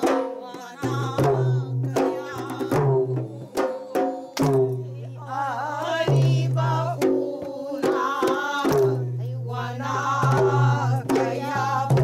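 A group of men and women singing a folk devotional song, accompanied by a two-headed barrel drum and hand claps, with sharp strikes recurring through the singing.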